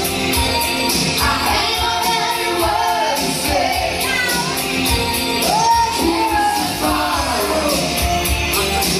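A song from a hit medley: a voice singing a melody over a band backing with a steady, regular beat.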